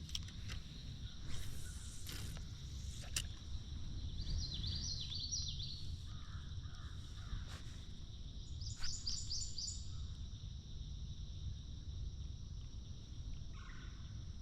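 Outdoor lake ambience: a steady low rumble with a few sharp knocks in the first seconds, and a bird's quick run of repeated high chattering notes, twice, about four and nine seconds in.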